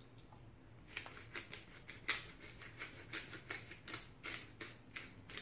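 A small spice jar of ground black pepper being shaken over raw pork ribs, a quick rattling hiss about three to four shakes a second, starting about a second in.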